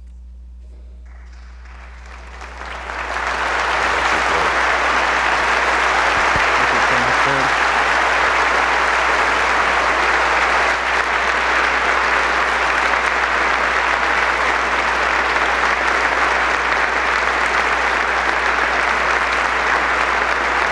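A large congregation applauding: the clapping swells up about two to three seconds in and then holds steady and loud.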